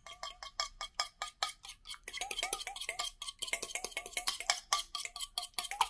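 A metal fork beating a raw egg in a stainless steel bowl: quick clinking strokes against the metal, several a second, each leaving a short ring from the bowl.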